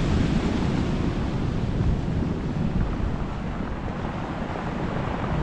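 Small waves breaking and washing on a pebble beach, with wind rumbling on the microphone.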